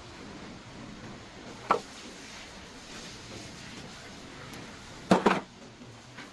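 Metal clanks from tools or parts being handled during repair work: one short clank about two seconds in, then a louder double clank about five seconds in, over a steady low background hiss.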